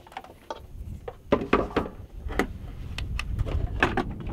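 Irregular clicks and knocks of gear being handled and set down, with a power cord being plugged into a portable power station.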